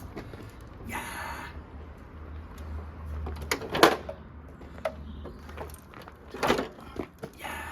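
Hand work on motorcycle brake parts: a few sharp metal knocks and clicks, the loudest about four seconds in and another about six and a half seconds in, with two brief scraping rustles, about a second in and near the end.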